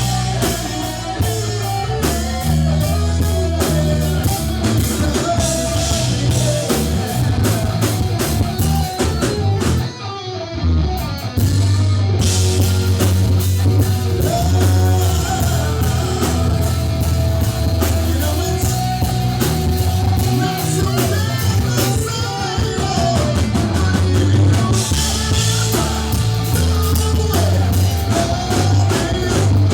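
A rock band playing live, loud: drum kit, bass, electric guitar and a singing voice. For about two seconds around ten seconds in, the cymbals drop out and the sound thins briefly before the full band comes back.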